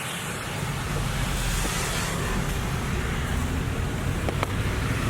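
A car engine running steadily under a rushing noise.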